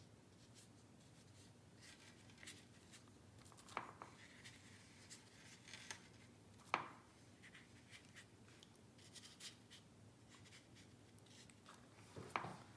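Near silence with faint strokes of a watercolor brush on paper and three soft taps, the clearest about seven seconds in.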